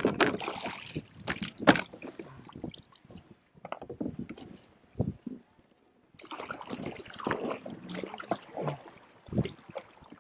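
Water sloshing and gurgling against a plastic kayak hull as the kayak moves, in uneven surges, with a few sharp knocks from gear on board.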